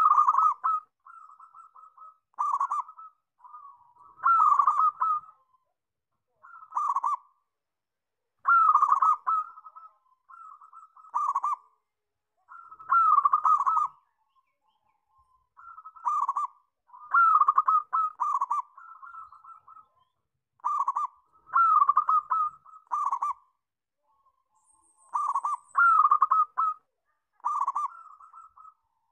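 Local zebra dove (perkutut) cooing: short phrases of rapid rolling coos, repeated about every two seconds, with softer coos between them.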